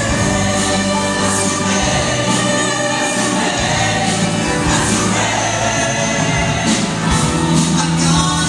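Show choir singing in full ensemble over an upbeat accompaniment with sustained bass notes and percussion hits.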